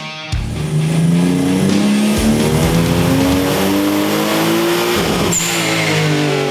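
Toyota Supra's 2JZ straight-six engine revving up under acceleration, its pitch climbing steadily for about five seconds, then briefly dropping off and running on.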